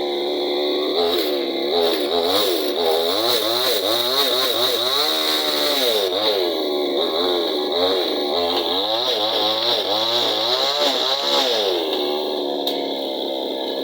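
Chainsaw engine being revved up and down again and again, then settling back to a steady idle near the end.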